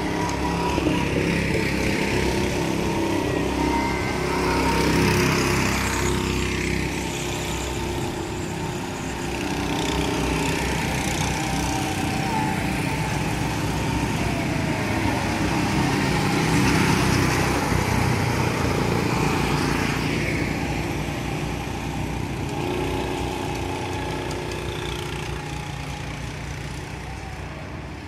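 Go-kart engines running as several karts drive round the track, swelling louder twice as karts pass close by and fading as they pull away near the end.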